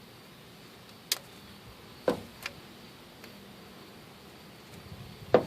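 Scattered sharp clicks and taps of hand work on brake parts, about five spread over a few seconds, the loudest near the end, over a low steady background.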